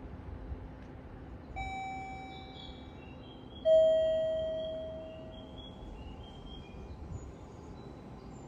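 A station's two-note electronic guidance chime, ding-dong: a higher tone, then about two seconds later a louder, lower one that rings and fades. Faint chirping repeats in the background over a low hum.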